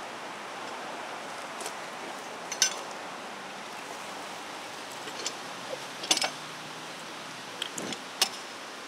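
Manual railroad switch stand being thrown: a few sharp metallic clanks and knocks, three of them louder and ringing, spread over several seconds against a steady outdoor hiss.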